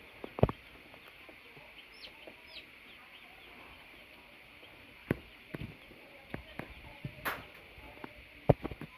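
A pen of baby chicks peeping steadily, with a few short rising cheeps standing out, and several sharp knocks and bumps, the loudest near the end.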